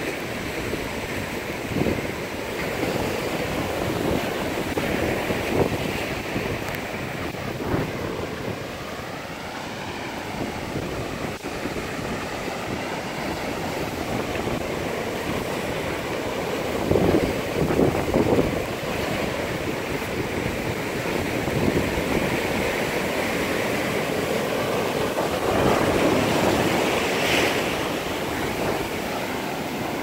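Ocean surf washing onto a beach, a steady rush that swells louder a couple of times as waves break, with wind buffeting the microphone.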